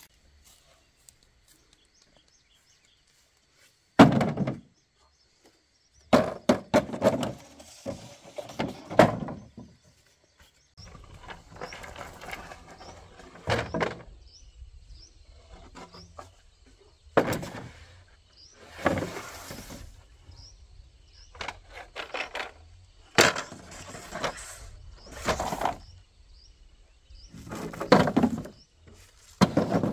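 Dry bamboo poles knocking and clattering against one another as they are dropped and sorted onto a pile, in bouts of several knocks every few seconds, the first a single sharp knock about four seconds in.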